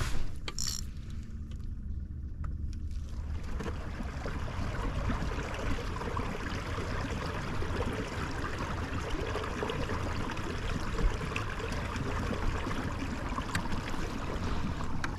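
Steady rushing water noise around a kayak, which swells in about three seconds in and holds, with a few light clicks before it.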